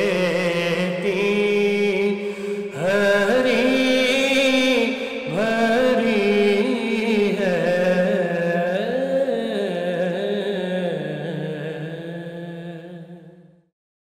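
Male voice singing a naat in long, bending held notes over a steady low drone, fading out near the end.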